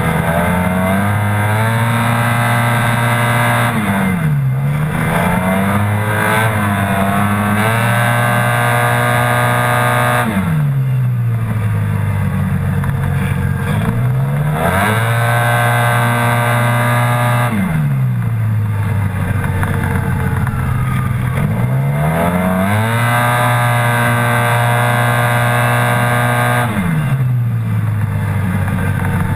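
Yamaha TMAX maxi-scooter's parallel-twin engine under hard riding. Its note holds at one steady pitch under throttle, as the belt-driven automatic transmission keeps the revs constant. About four times it drops away as the throttle closes for a corner and rises back up, with a steady rush of wind over it.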